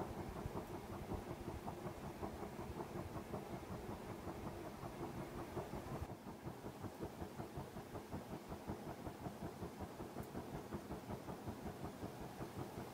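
1984 Nadair Industriel three-blade metal ceiling fan running, a motor hum with an even pulsing about five times a second as the blades go round. A click about six seconds in, after which it runs a little quieter.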